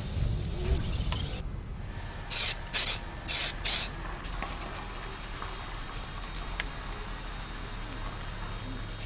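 Aerosol spray-paint can sprayed in four short, loud hissing bursts, each about a quarter second long, starting about two and a half seconds in.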